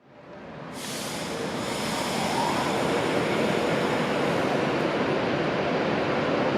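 Train running along the track, its noise swelling over the first two seconds and then holding steady.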